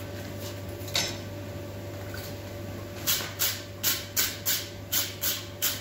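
Hand hammer striking a red-hot railway spike on the anvil horn: a single knock about a second in, then a steady run of ringing blows about three a second from about three seconds in, as the tip is scrolled downwards. A steady hum runs underneath.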